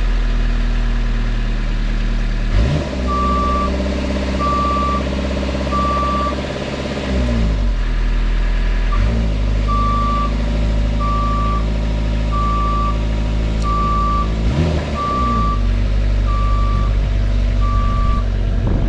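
Boom lift's engine running and speeding up and slowing down several times as the lift moves, with its motion alarm beeping steadily, about one beep every second and a quarter, starting about three seconds in.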